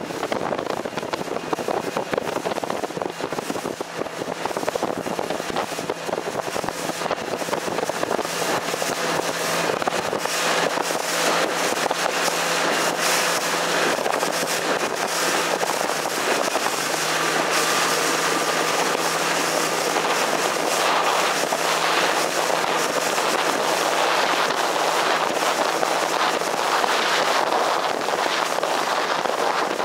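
Wind buffeting the microphone and water rushing past a moving boat, with the steady hum of a motorboat engine underneath.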